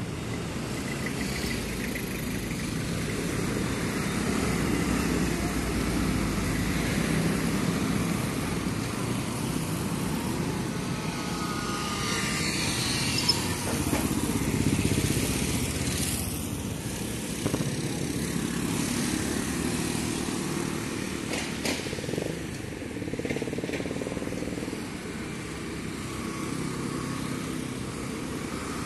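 Road traffic passing close by: a van, cars and motorcycles, engines running and tyres on the road, swelling and easing as the vehicles go past.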